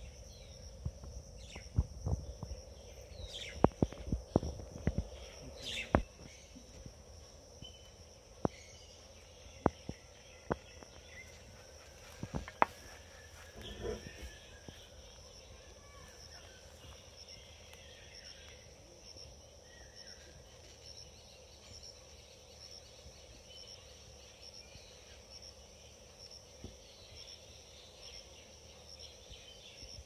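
Insects chirping steadily in a high, evenly pulsing chorus, with a few faint bird calls. Sharp clicks and knocks come every second or so through the first half, then stop.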